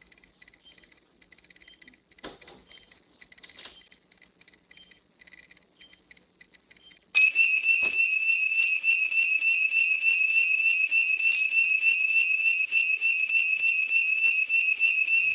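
Faint scattered ticking. About seven seconds in, a loud, high-pitched whistling tone with a slight quick warble starts suddenly and holds steady.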